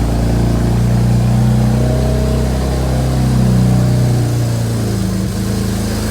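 BMW 335i's N54 twin-turbo straight-six idling through catless downpipes, with a steady low exhaust note whose pitch wavers slightly.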